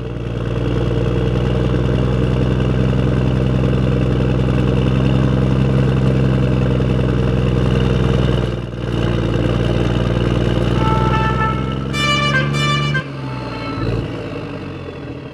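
Engine of a military six-wheel cargo truck running steadily as it drives. Near the end, a brief high squeal as it pulls up, and the engine cuts off suddenly.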